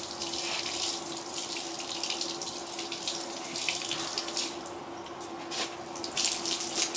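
Running water splashing unevenly as a horse's hoof wound is flushed out, with a faint steady hum underneath.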